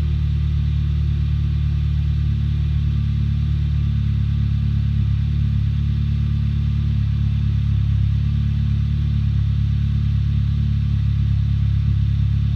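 2008 Audi A3 1.8 TFSI turbocharged four-cylinder petrol engine idling steadily after a cold start. The idle is the rough, misfiring cold-start idle that the owner reports and that makes the car shake.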